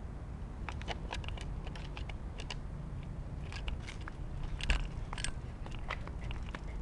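Irregular clicks and light rattles from a plastic bike basket on its makeshift mount as the bicycle is walked, with a corgi puppy shifting inside it; a duller knock about four and a half seconds in.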